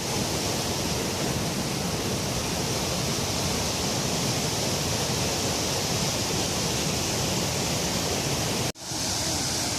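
Waterfall rushing: a steady, dense roar of falling water. It cuts out for an instant near the end and comes straight back.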